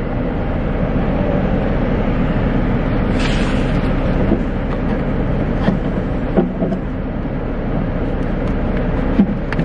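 Steady rumble and hiss of a car idling, heard inside the cabin, with a few light knocks.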